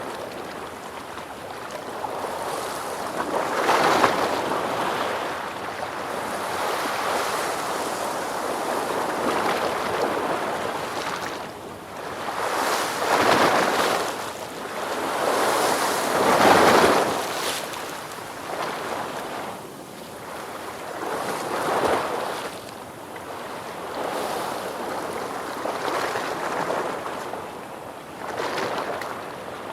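Ocean surf: waves breaking and washing in, swelling and ebbing every few seconds, with the biggest surges about halfway through.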